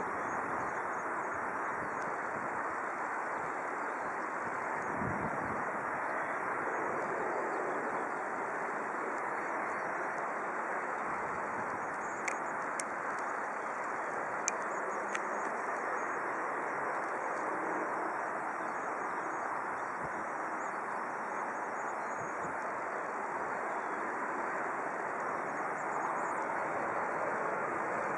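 Distant jet airliner engines running, a steady even rush of noise with no rise or fall. A few faint clicks come about halfway through.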